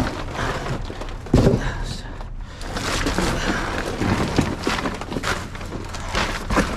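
Trash being rummaged through in a dumpster: scattered knocks, clatter and rustling, with one sharp thud about a second and a half in.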